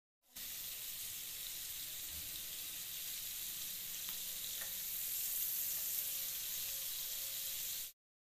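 Peeled prawns shallow-frying in hot oil in a pan: a steady hissing sizzle with fine crackling, starting just after the start and cutting off suddenly near the end.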